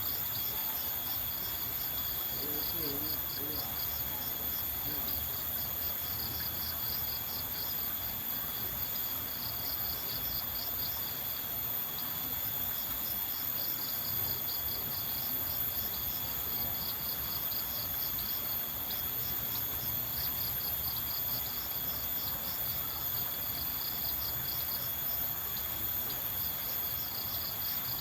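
Insects calling: a steady high-pitched buzz, with rapid pulsed chirping that comes in repeated bouts every few seconds.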